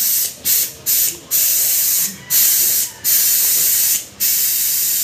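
Compressed air hissing in about seven bursts, each half a second to a second long with short breaks between, from a pneumatic vacuum brake bleeder at the motorcycle's front brake caliper, pulling brake fluid through the system to bleed it.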